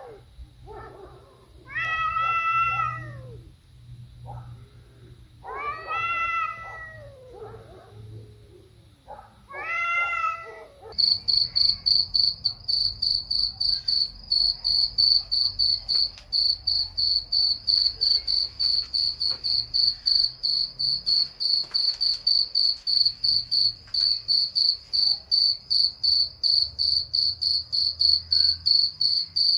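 A cat yowls three times, long drawn-out cries that bend in pitch. About eleven seconds in, a cricket's high chirping starts suddenly and carries on as a rapid, regular pulse.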